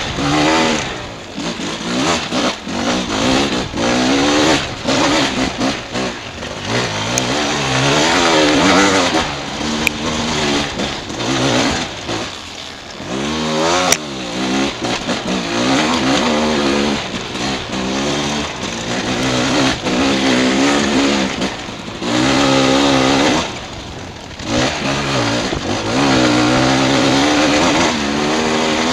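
Dirt bike engine revving up and down over and over as the rider works the throttle on a rough, climbing trail, with a couple of short lulls where it drops back.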